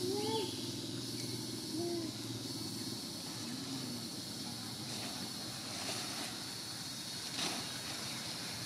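A small motor engine running steadily in the background, easing off after about two seconds. Three short low calls rise and fall in the first few seconds, and there are a couple of faint clicks near the end.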